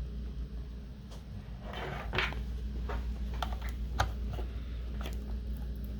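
A power cable being handled and plugged into a laptop docking station: rustling of the cord and several small plastic clicks, over a low steady hum.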